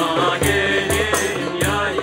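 Acoustic folk ensemble playing: a man's voice singing a wavering melodic line over plucked lute, tabla, shakers and a large frame drum, with deep drum strokes recurring under the voice.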